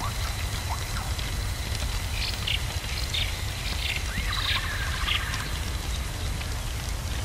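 A steady crackling hiss with a low rumble underneath, and a bird-like phoenix call from about two seconds in: a run of short high chirps, then a rising call near the middle.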